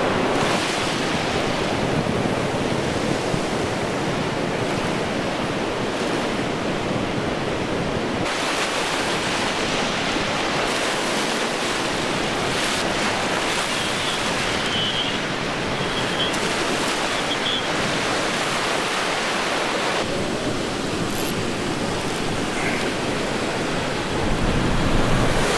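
Steady wash of ocean surf breaking on a coral reef, an even rushing noise.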